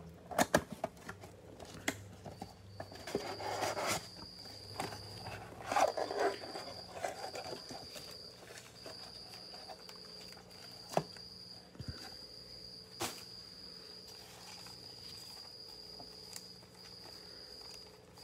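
A cricket chirping, a high-pitched trill in stretches of about a second with short breaks, starting about two and a half seconds in. Over it, cardboard box flaps and the plastic wrap of a trading-card box rustle and crinkle, loudest in the first seven seconds, with a couple of sharp taps later on.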